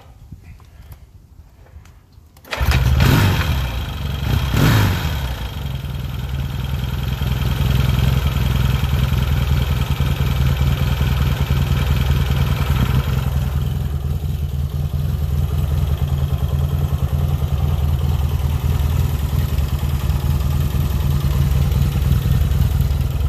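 A 1981 Yamaha XS650 Special II's parallel-twin engine kick-started: it catches about two and a half seconds in, is revved up twice, then settles into a steady idle.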